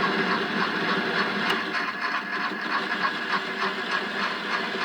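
Metal lathe running, its gear train clattering with a fast, even ticking while the carriage feeds along to turn a shoulder on the workpiece.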